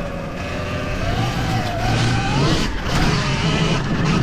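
Sur-Ron Ultra Bee electric dirt bike being ridden: the electric motor's whine rises and falls with the throttle over a steady low rumble.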